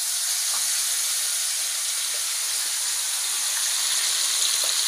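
Marinated chicken sizzling steadily in hot ghee in a wok just after being poured in, while a wooden spoon stirs it.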